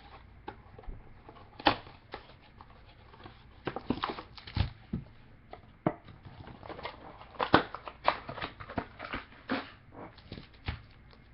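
A trading card box and its packs being opened and handled: irregular rustles, taps and clicks of cardboard and wrappers.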